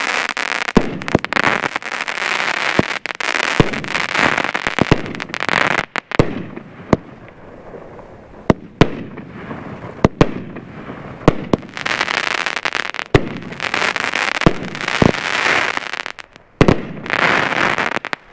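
A 12-shot, 200-gram consumer fireworks cake firing: a run of sharp launch and break reports a second or so apart, each followed by a dense crackling hiss from the breaking effects.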